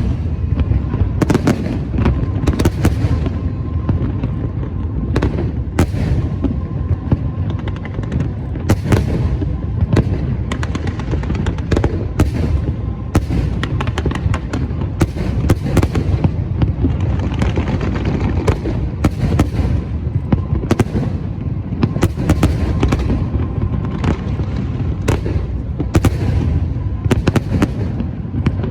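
Aerial fireworks display: a continuous barrage of booming shell bursts, several bangs a second at times, over a steady rumble of launches and explosions.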